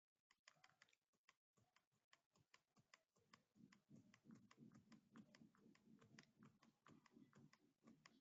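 Faint typing on a computer keyboard: a quick, uneven run of key clicks, several a second, starting about half a second in.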